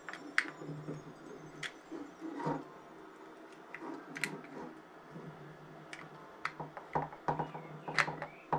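Small insulated screwdriver working the terminal screws of a Shelly 1 relay as wires are fastened: scattered light clicks and ticks, coming thicker in the last couple of seconds.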